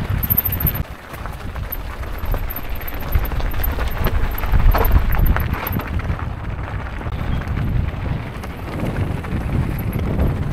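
Mountain bike rolling over a rough track: tyres crunching and the bike rattling, with many small clicks and knocks over wind buffeting the camera microphone.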